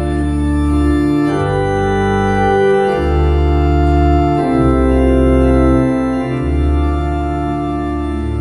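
Organ playing a slow series of held chords, changing chord every second or two with no singing over it: the instrumental close of a hymn after its final Alleluia refrain.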